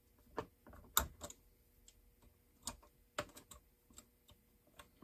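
Sparse, irregular metal clicks and taps of hand tools working on the parts of a Farmertec MS660 chainsaw being taken apart, the sharpest about a second in.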